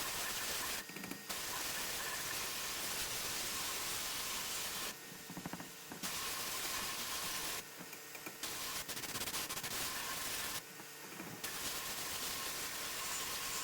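Sandblasting cabinet's air gun blasting a wheel rim: a steady hiss that stops briefly and starts again four times.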